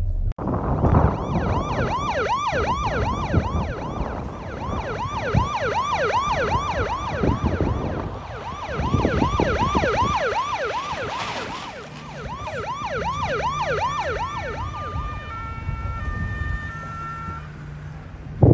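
Police-style siren in a fast yelp, its pitch sweeping up and down about three times a second, over car engine and road noise. Near the end it changes to a short run of steady tones stepping in pitch.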